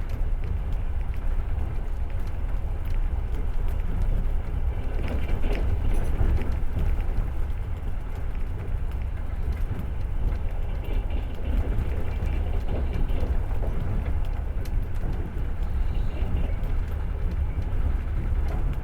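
Passenger train carriage rolling along the rails, heard from inside: a steady low rumble of wheels on track with scattered clicks and knocks.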